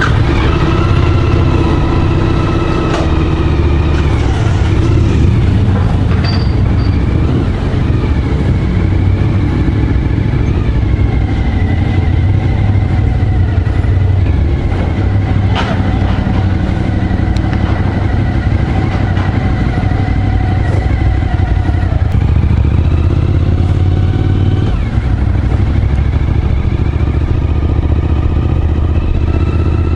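Suzuki V-Strom motorcycle engine running under way, its note rising and falling a few times with throttle and speed changes.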